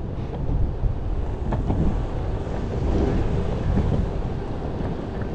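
Wind buffeting the microphone in a steady low rumble, over the rolling of an electric skateboard's rubber wheels on rough, cracked asphalt.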